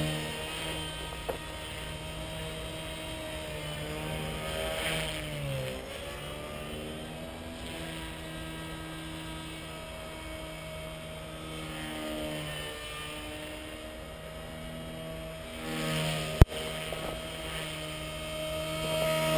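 Electric Gaui EP200 RC helicopter in flight: steady whine of its motor and rotor blades, the pitch dipping briefly about five seconds in and the sound swelling louder a few times. A sharp click about 16 seconds in is the loudest moment.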